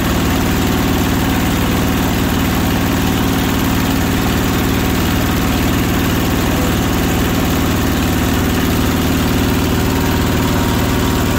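Belt-driven cast-iron meat grinder running steadily under load as meat is fed through it, its motor giving an even, unbroken hum.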